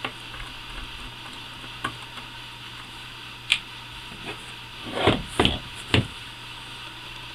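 A few short clicks and knocks as a Daisy Powerline 880 air rifle is handled and turned over on a tabletop, the loudest bunched together a little past halfway, over a steady low hum.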